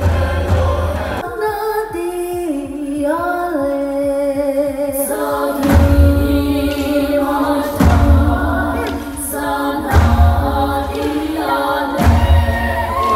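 Group of voices singing live on a PA, with held notes and slow pitch glides, over a deep drum beat about every two seconds that drops out for a few seconds near the start.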